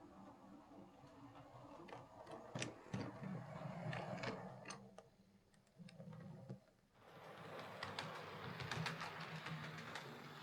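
Hornby King Class OO gauge model steam locomotive running on the track: its electric motor and gears give a low steady hum, with sharp clicks. The loco is freshly serviced and running smoothly. The hum dies away for a moment a little over halfway through, then picks up again.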